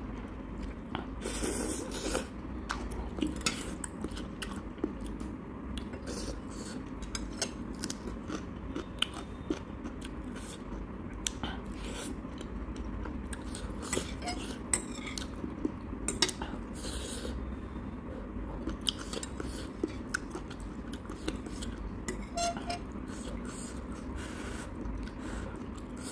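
Close-up eating sounds of instant ramen: slurping and chewing noodles, with frequent sharp clicks of metal chopsticks against the bowl.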